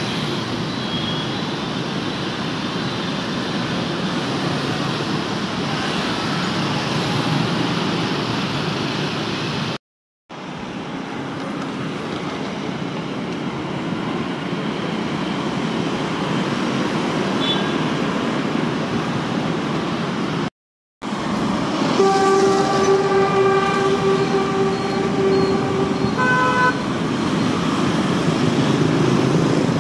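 Busy city street traffic, mostly motorbikes with some cars, a steady rumble of engines and tyres with a few short horn beeps. About 22 seconds in a vehicle horn is held for about four seconds, followed by a shorter horn toot of a different pitch. The sound cuts out briefly twice.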